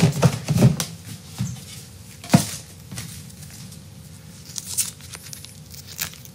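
Plastic chimichurri sauce pouch being handled and opened: a sharp click about two and a half seconds in, then faint crinkles and ticks.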